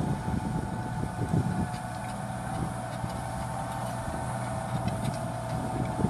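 Deutz-Fahr Agrotron 7250 TTV tractor's six-cylinder diesel engine running steadily under load while pulling a five-furrow mounted plough through the soil. A steady whine sits over the low engine rumble.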